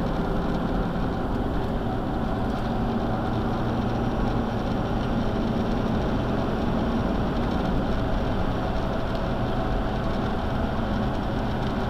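Steady in-cab road noise from a pickup truck towing a travel trailer at highway speed: tyre and engine drone with a low, even hum, no change throughout.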